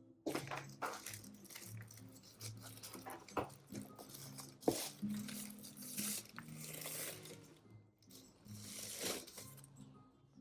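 Packaging rustling and crinkling as it is handled, with a couple of sharp clicks, over soft background music.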